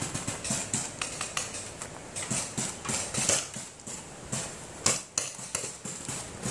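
Paintball markers firing: a fast, irregular run of sharp pops and clicks, several a second, with one louder pop about five seconds in.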